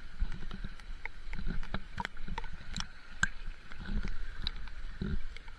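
Stream water flowing and splashing over rocks in the rain, with irregular sharp taps and clicks throughout.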